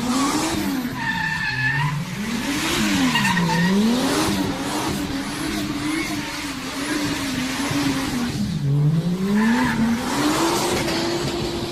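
Car engine revving up and down again and again while its tyres squeal and skid as the car drifts in circles. The revs hold steady near the end.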